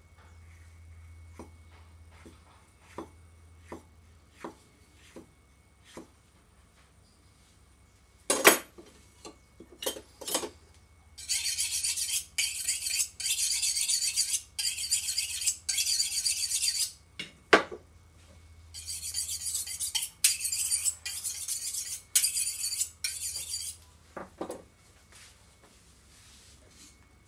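A kitchen knife drawn rapidly back and forth along a German-made steel sharpening rod: two long runs of fast, high-pitched metallic scraping strokes, each lasting several seconds. Before them come a few light taps of the knife slicing a chili on a wooden chopping board, and a few louder single knocks are scattered through.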